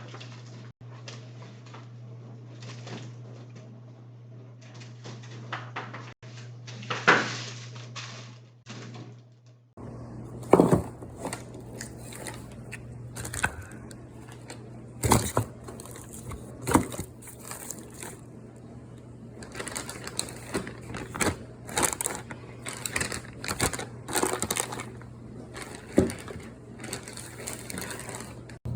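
Food containers and packaging being handled and set down: irregular clacks, knocks and crinkling, over a steady low hum.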